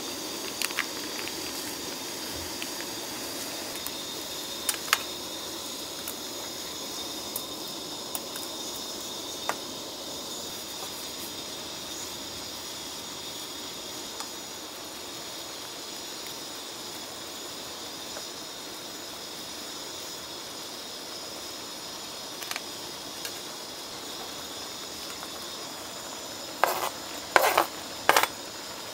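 Spicy webfoot-octopus stir-fry sizzling in a grill pan over a camping stove, a steady hiss with scattered small ticks and pops. A few louder sharp knocks come near the end.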